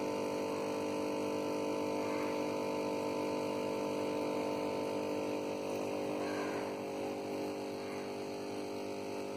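Aquarium air pump humming steadily, a drone of several steady tones that drives the bubble curtain in the tank.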